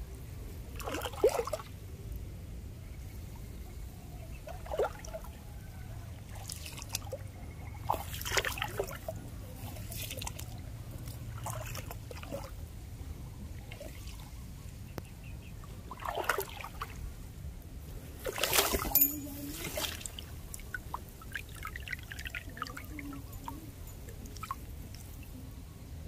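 Shallow rice-field water splashing, sloshing and trickling in short scattered bursts as a small hand fishing net is dipped and lifted, with a longer, louder bout of splashing about three quarters of the way through. A low steady rumble runs underneath.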